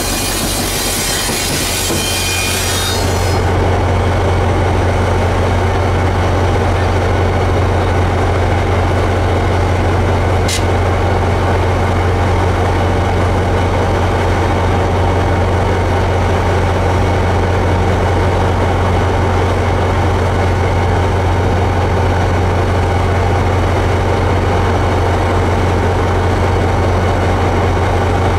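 Railcars rolling by with a hiss of wheel squeal for the first few seconds. The squeal gives way to the steady low drone of an EMD GP40PH-2 diesel locomotive's engine running close by, with one sharp click about ten seconds in.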